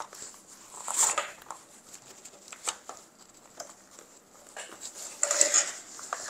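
Hands handling a nylon chest rig and an AK magazine in its elastic-retention pouch: scattered fabric rustles, scrapes and small clicks. A longer scraping rustle comes about a second in and another near the end.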